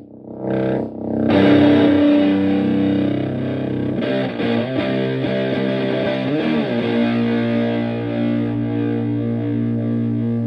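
Stratocaster electric guitar through a Tone Bender MkI fuzz pedal and a Fender Twin Reverb-style amp, playing fuzzed, sustaining notes. A short note comes first, then a strong held chord. Wavering string bends follow in the middle, and it settles into a long held note near the end.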